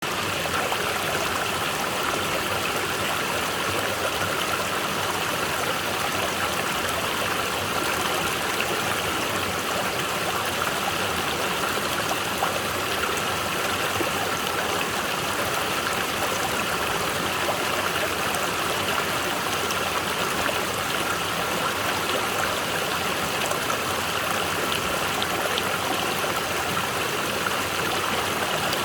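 Mountain valley stream running steadily over rocks, a constant rush of water.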